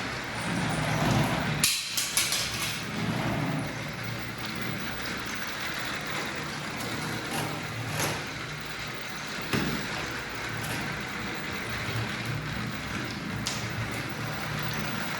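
Remote-control toy train running with a steady motor hum, with a quick run of sharp clacks about two seconds in and a few single clicks later.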